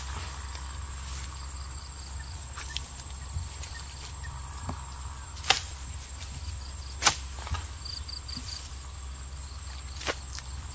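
Steady high-pitched insect drone in grassland, broken by a few sharp knocks, the two loudest about five and a half and seven seconds in and a smaller one near the end.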